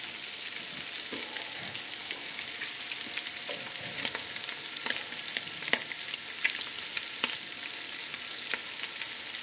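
Strips of beef tripe frying in fat with paprika in a pot: a steady sizzling hiss with scattered crackling pops as the water from the tripe cooks off.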